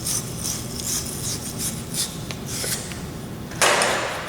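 Wire fitting brush scrubbing the inside of a 1/2-inch copper fitting in quick scratchy strokes, about three a second, cleaning the metal before it is fluxed and soldered. A louder, longer rasp comes near the end.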